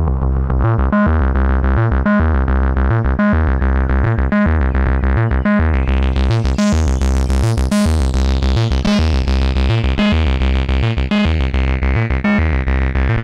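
Plankton Electronics Ants! synthesizer playing a fast repeating sequenced bass pattern through the SPICE saturation and distortion unit. The tone grows much brighter and fuzzier from about six seconds in.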